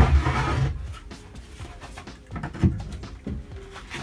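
A loose plywood panel being handled and set into a plywood cabinet frame: a knock at the start, a couple of light wooden knocks in the middle, and a loud wooden thump at the very end as it goes into place.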